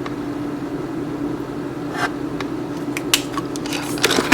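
Kitchen utensils clicking and clattering against a container over a steady low hum, the clatter getting busier near the end.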